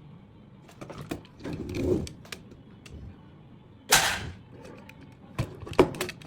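Handling noise of hard parts: a few small clicks, a brief rustle, then one sharp, loud snap about four seconds in, followed by two more sharp knocks near the end.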